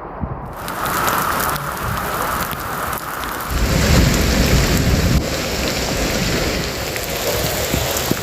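Heavy rain pouring down hard. A deep rumble rises about three and a half seconds in and lasts a couple of seconds.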